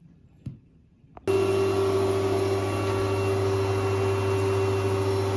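A click, then about a second in a shower pump's motor starts and runs with a steady hum and a higher held tone over a hiss, as the shower is turned on to test that the water now comes through.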